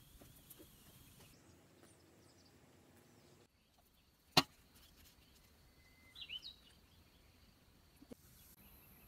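A single sharp knock as a whole roast duck is flipped and set down on a glass sheet, over a faint outdoor background. About two seconds later a bird chirps briefly.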